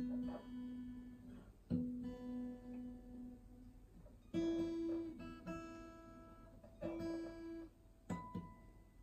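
Gibson J45 acoustic guitar with single open strings plucked one at a time and left to ring out: the B string twice, then the high E string three times, to check the tuning on a guitar that is a little out of tune.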